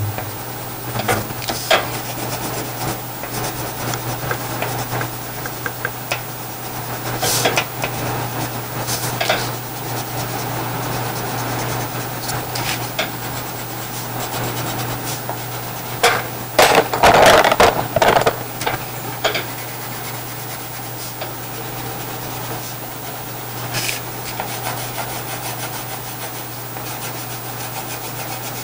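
Wax crayon rubbing back and forth on paper in short colouring strokes, louder for a couple of seconds just past the middle. A steady low hum runs underneath.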